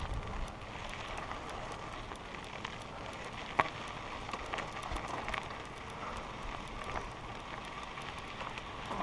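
Mountain bike tyres rolling and crunching over a loose gravel trail, with scattered clicks and one sharp, loud click about three and a half seconds in.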